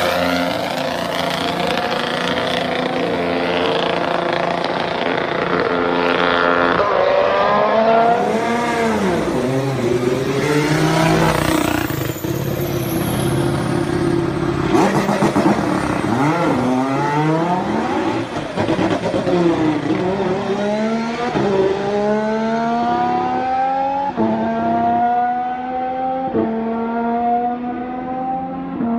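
Honda Formula One 1.6-litre turbocharged hybrid V6 engine at racing speed: the pitch falls through downshifts a few times, then climbs through gear after gear in the last third, each upshift a sudden drop in pitch.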